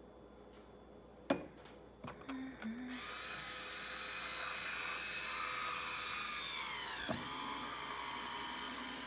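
Electric wine opener set on the bottle with a few knocks, then its motor starting about three seconds in and running with a steady whine. The whine sinks in pitch over a couple of seconds as the corkscrew works into the cork, and after a click about seven seconds in it runs steady as the cork is drawn up into the chamber.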